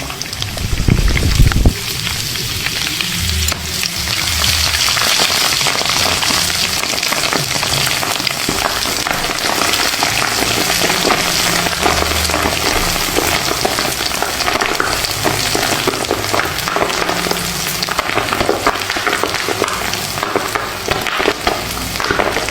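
Popcorn cooking in hot oil, sizzling with a dense run of small crackles and pops that thicken after the first few seconds. A loud low thud-like burst comes about a second in.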